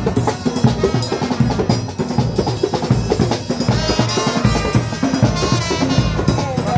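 Marching band drums, snare and bass drum, beating a busy, driving rhythm, with a melody carried over the top.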